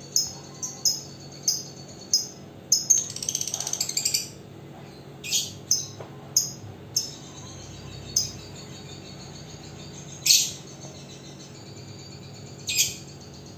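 Lovebird calling: sharp, high chirps every second or so, with a rapid chattering trill lasting about a second around three seconds in.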